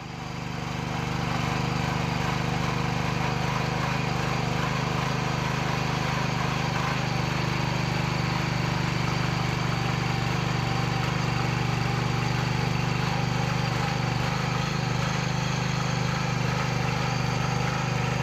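Ruris 732K motor tiller's single-cylinder four-stroke petrol engine running at a steady speed under load as its rotating tines dig through loose soil. The sound fades in over about the first second, then stays even.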